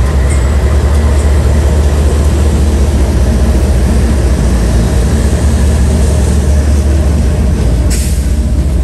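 Diesel-electric freight locomotives passing close by: a loud, steady low engine drone with the rumble of the train rolling over the rails. A brief rush of hiss comes near the end as the first hopper cars go by.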